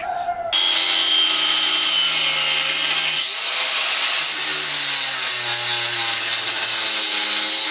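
Angle grinder cutting through a steel lawnmower blade. It starts about half a second in with a steady high whine, and about three seconds in the pitch drops as the disc bites into the metal and the motor slows under the load.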